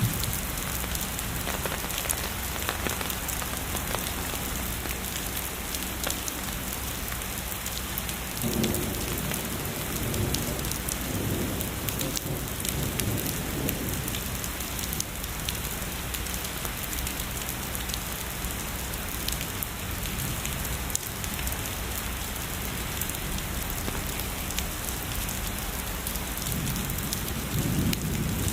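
Heavy rain falling steadily, with drops pattering sharply on a surface, and distant thunder rumbling low twice: once from about a third of the way in for several seconds, and again building near the end.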